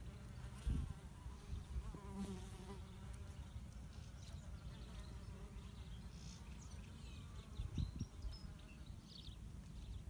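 Faint buzzing of a small flying insect, a bee or fly, around a prickly pear cactus flower, clearest a couple of seconds in, over a steady low rumble. There are two soft low thumps, the first about a second in and the second near the eight-second mark.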